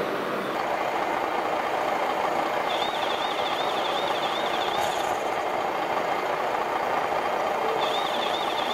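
Scale RC truck's sound module running a simulated diesel engine steadily, with a high warbling electronic alarm tone for about two seconds starting about three seconds in, and again near the end.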